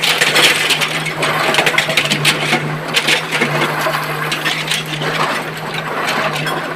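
Excavator working in broken rock: stones clattering and knocking continuously over the steady drone of the diesel engine.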